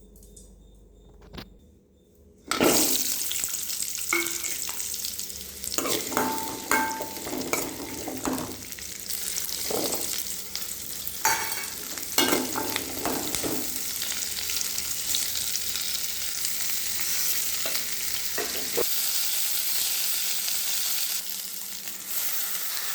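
Food frying in hot oil in a pan, sizzling loudly, with a spoon stirring and scraping against the pan. The sizzle starts suddenly about two and a half seconds in and keeps on steadily.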